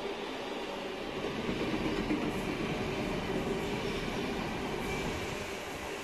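NS yellow-and-blue double-deck electric train running on the rails with a steady rumble that swells about a second or two in, and a faint high whine near the end.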